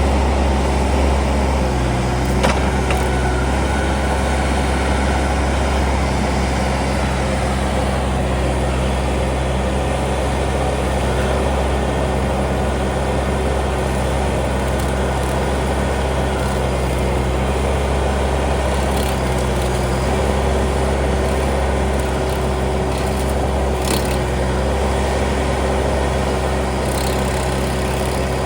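Case TL100 mini skid steer's engine running steadily under a stump grinder attachment, a constant low drone with a steady higher tone over it and a couple of brief knocks.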